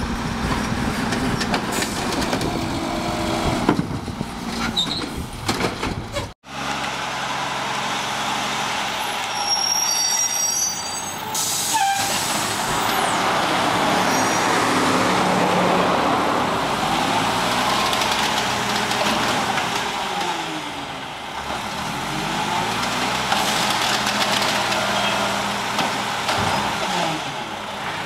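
Diesel engine of a Mack LE automated side-loader garbage truck, running while its arm lifts and dumps a cart. After a cut, the truck comes down the street with its engine pitch rising and falling several times as it speeds up and slows between stops.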